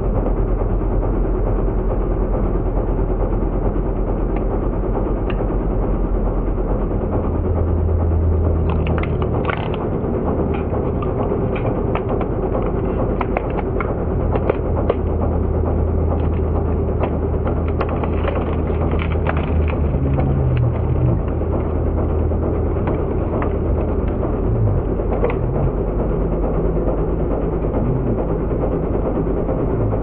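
Road roller's engine running steadily, its low hum shifting slightly now and then, with scattered clicks and rattles.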